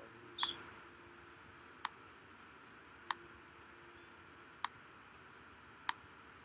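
Computer mouse button clicked five times at a steady pace, about once every second and a half, over a faint hiss; the first click is the loudest.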